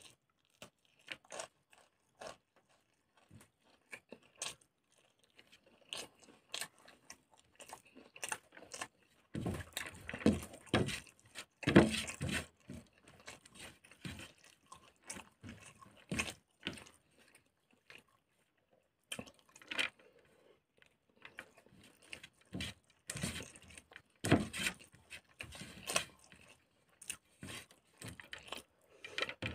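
Close-miked eating sounds: chewing and mouth clicks, with fingers scraping and gathering leftover rice across a plate. Short scattered clicks and smacks run throughout, with two louder, busier stretches about a third of the way in and again past two thirds.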